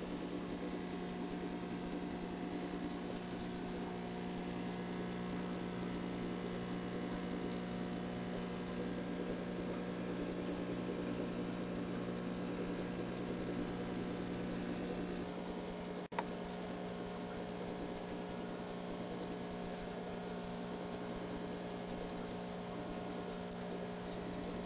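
Aquarium air pump and bubbling air-driven filters: a steady hum over a hiss, with one brief click about two-thirds of the way through.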